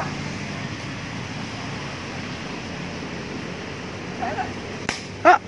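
Steady hiss of wind on the microphone outdoors, then near the end a single sharp pop followed by a brief loud shout.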